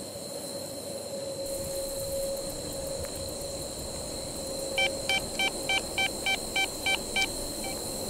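Handheld EMF meter going off: a quick run of about nine electronic beeps, roughly three a second, starting a little past halfway and stopping abruptly, with one faint last beep. The beeping is the meter's alert for a detected electromagnetic field.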